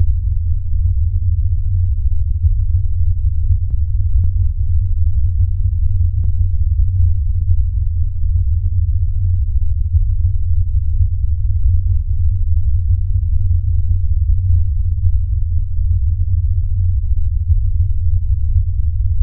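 A loud, steady low bass drone, with only a few faint ticks above it: an eerie ambient sound effect on a horror-film soundtrack.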